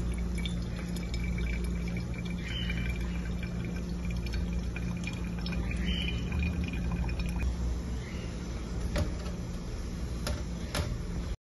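Hot water poured from a glass kettle onto ground coffee in a paper pour-over filter: a steady pouring trickle over a low hum. A few light knocks near the end.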